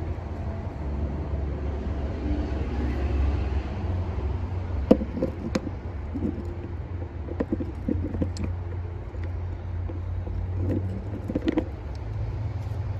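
Metal parts of a hydraulic winch clinking and knocking as they are handled, scattered sharp knocks mostly in the second half, over a steady low rumble.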